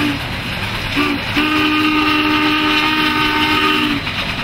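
Union Pacific Challenger No. 3985's steam whistle blowing: a long blast ends just as the sound begins, then a short toot about a second in and a long blast of about two and a half seconds, over the steady rumble of the moving train.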